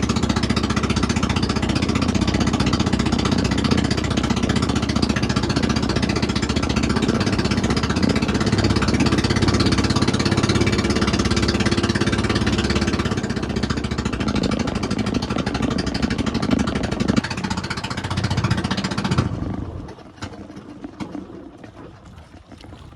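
Small fishing boat's engine running steadily while under way, a loud rattly drone; it falls away sharply about nineteen seconds in, leaving a much quieter background.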